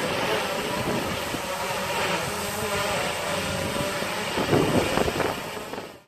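Quadcopter drone's propellers whining steadily in flight, with wind rumbling on the microphone; the sound fades out near the end.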